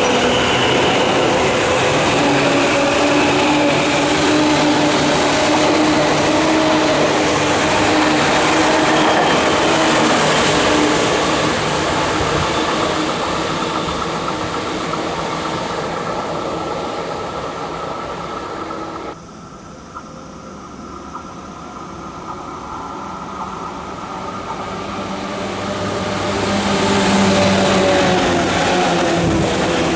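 Tokyu 8500 series electric train running, its traction motors whining loudly with steady tones over rolling noise. The sound drops off suddenly about two-thirds of the way through, then builds back to full loudness near the end.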